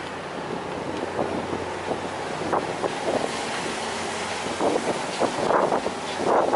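Wind buffeting the microphone on a ferry's open deck, gusting harder in the last couple of seconds, over a faint low steady hum from the ship's engines.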